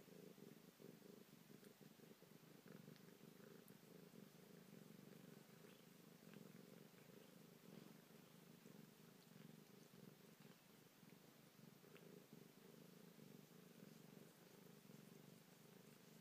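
Domestic cat purring steadily and faintly, a low continuous purr.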